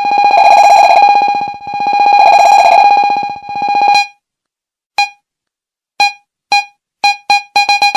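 Electronic intro music: a buzzing synthesizer tone on one pitch swells twice and a third time more briefly, stops for about a second, then returns as short repeated notes that come faster and faster.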